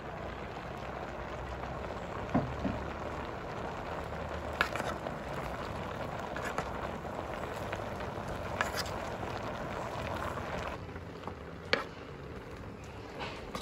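Wood fire crackling under a clay cooking pot: a steady crackling hiss with a few sharp clicks and knocks, the hiss falling away about eleven seconds in.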